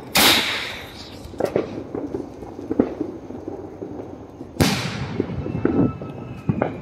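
A 4-inch aerial firework shell fired from its mortar tube: a sharp launch bang right at the start, then about four and a half seconds later the loud bang of the shell bursting overhead. Each bang trails off in a fading rumble.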